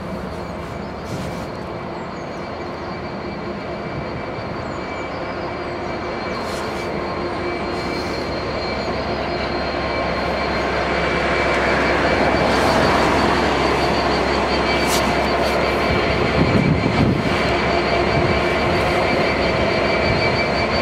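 Class 66 diesel-electric locomotive and its freight train rolling very slowly past, the engine drone and wheel rumble growing louder from about halfway through as the locomotive draws near. A faint steady high whine sits over it.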